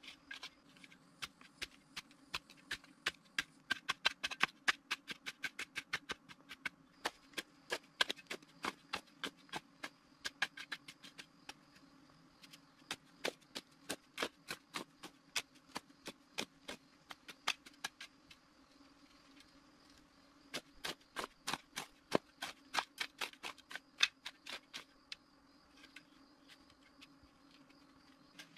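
Metal shovel blade scraping and chopping into sandy soil in quick, sharp strokes, several a second, in spells with short pauses; the strokes die away near the end.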